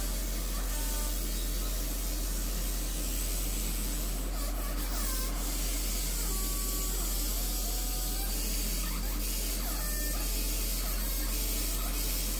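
Steady low mains hum with an even, fan-like whir of running electrical equipment.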